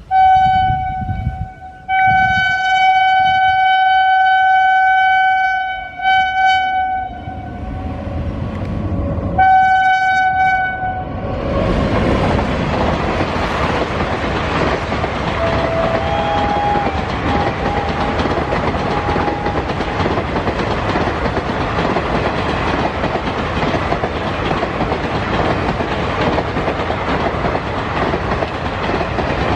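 WAP-7 electric locomotive sounding its horn in several blasts, the longest about four seconds. About eleven seconds in, the train reaches the iron bridge and the rest is a steady loud rumble and clatter of coach wheels on the bridge.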